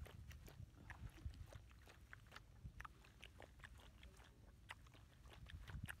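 Siberian husky lapping and licking from a small plastic bowl held in a hand: faint, irregular wet clicks of the tongue, several a second.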